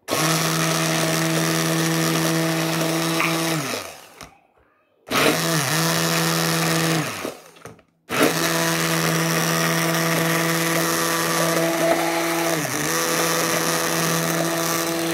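Hand-held stick blender motor running in a bowl of egg batter. It is switched off twice, about 4 s and 7 s in, its pitch falling as it spins down, and each time it is switched back on about a second later.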